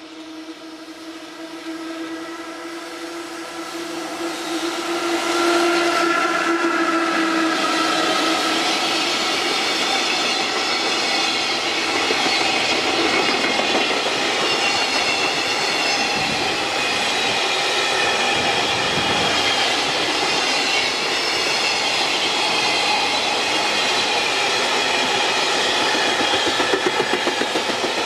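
A freight train hauled by an electric locomotive passes close by. The locomotive comes up with a steady hum and tones, growing loud about six seconds in, then a long string of freight wagons rolls past with continuous wheel-on-rail clatter.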